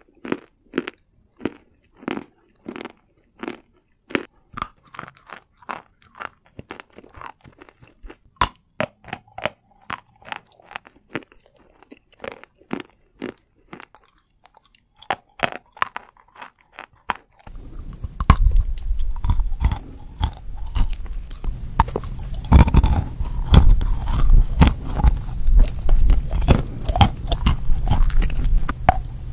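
Close-miked ASMR crunching and chewing of edible chalk: a quick run of sharp, brittle crunches as pieces are bitten and ground between the teeth. About two-thirds of the way in, the crunching turns louder and heavier, with a deep low rumble beneath it.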